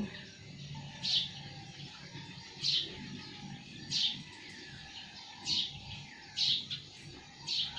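A bird chirping: about six short, high chirps, each sliding downward, one every second or so.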